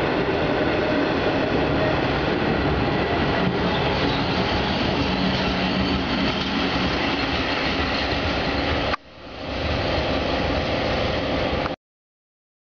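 Swiss electric locomotive-hauled passenger train running beside a station platform: a steady rumble and rolling noise with a faint hum. The sound drops out for a moment about nine seconds in, comes back, and cuts off suddenly near the end.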